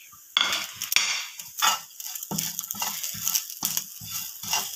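Spatula stirring and scraping shredded chicken with spices around a hot oiled frying pan, in a quick run of irregular scraping strokes.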